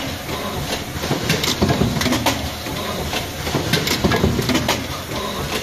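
Card hot stamping machine running, with a string of irregular clicks and knocks from its moving parts over a steady mechanical noise.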